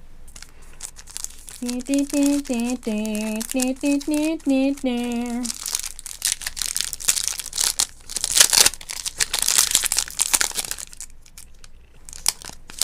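A woman hums a short wordless tune for about four seconds, then a trading-card pack wrapper is crinkled and torn open for several seconds.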